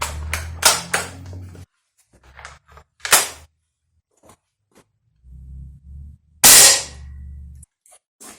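Norica Goliath 88 air rifle firing once, a loud sharp crack about six and a half seconds in. It is preceded by a few clicks of handling and a single sharp knock about three seconds in.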